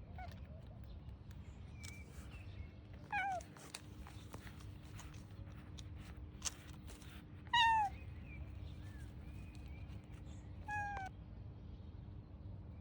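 Cat meowing three times, each a short call falling in pitch, the middle one the loudest.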